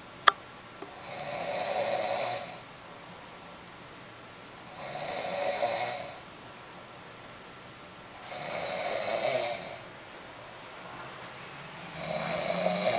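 A person snoring in slow, regular breaths, four snores about three and a half seconds apart. A sharp click just after the start is the loudest single sound.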